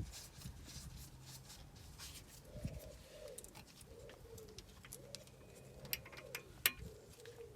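Faint bird cooing, a run of low repeated calls from a few seconds in, with a couple of sharp clicks near the end.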